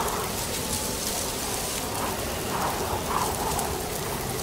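A steady, even hiss of noise, like falling rain.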